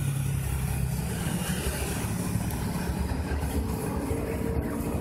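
Road traffic: motor vehicle engines running in the street, a steady low rumble, with a steady engine hum coming in near the end.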